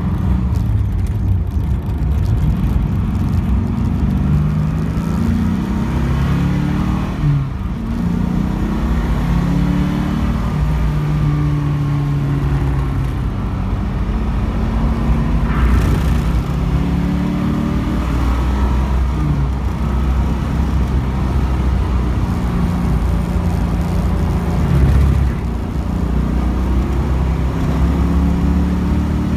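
1975 Pontiac Trans Am's V8 engine heard from inside the cabin under hard driving, its pitch repeatedly climbing under acceleration and falling away through shifts and lifts off the throttle.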